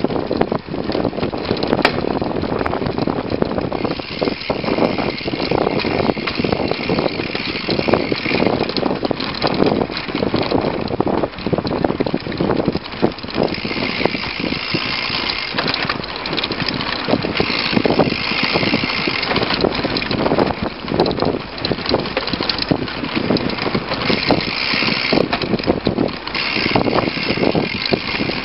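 Mountain bike riding fast over a bumpy dirt trail, heard from a camera clamped to its front fork: a continuous clatter of knocks and rattles from the trail bumps over tyre and wind noise. A higher hiss comes and goes several times.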